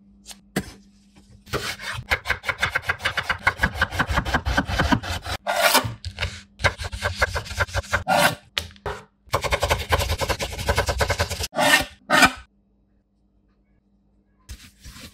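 Vegetables being cut on a wooden board in quick repeated strokes, in two long runs with a short break, followed by two louder knocks.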